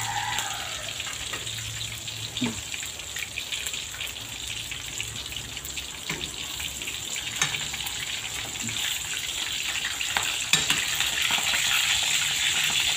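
Pre-boiled pork chunks deep-frying in hot oil in an aluminium wok: a steady sizzle with a few sharp clicks and pops as a spatula turns the pieces, getting a little louder near the end.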